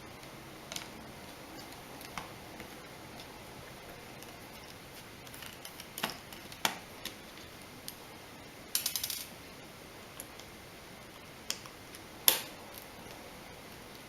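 Small clicks and taps of a precision screwdriver and tiny screws being worked out of a phone's plastic mid-frame, scattered and irregular, with a quick rattle of about six clicks near the middle and a sharper tap toward the end.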